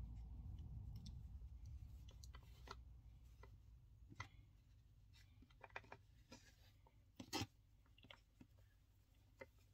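Near silence with faint scattered clicks and handling sounds as cord is worked into macrame knots around a metal keychain clasp, with one sharper click about seven and a half seconds in. A low hum fades out over the first few seconds.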